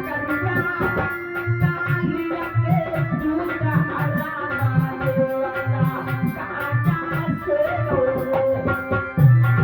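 Instrumental devotional folk music: a hand drum played in a quick, steady rhythm under held melody notes. A louder, deep held note comes in near the end.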